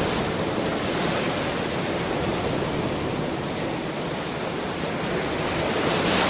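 Ocean surf: a steady wash of breaking waves, swelling slightly near the end.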